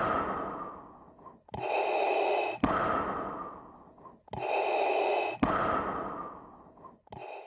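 Darth Vader's respirator breathing: slow, mechanical breaths through the mask, about one every three seconds, each inhale a steady hiss and each exhale fading away.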